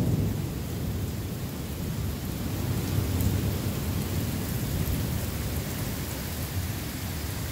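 Heavy rain pouring down steadily: an even hiss with a low rumble underneath.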